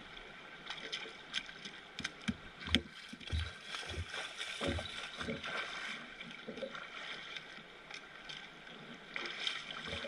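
Shallow river riffle rushing steadily, with irregular close knocks and thumps over it.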